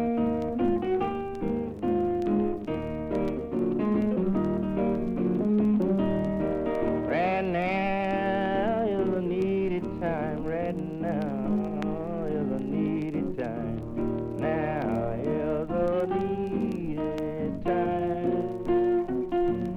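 Acoustic blues guitar break, picked and strummed, in a slow gospel-blues number. From about a third of the way in, wavering, sliding notes rise above the picking.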